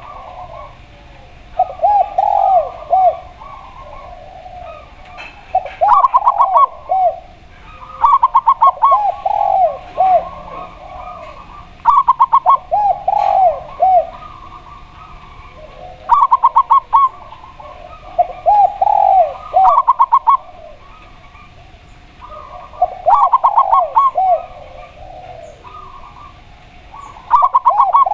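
A spotted dove and a zebra dove cooing. Each phrase is a quick run of short notes with lower, arching coos, and the phrases repeat every three to four seconds.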